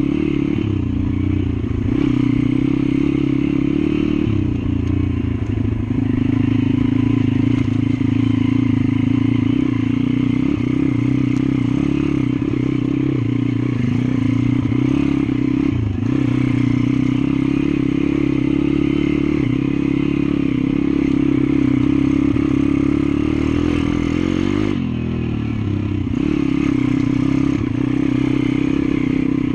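Pit bike's small engine running under load as the bike rides a stony trail, its revs holding fairly steady, with rattle and scrape from the bike over the rough ground. About 25 seconds in the engine note drops briefly as the throttle is eased, then picks up again.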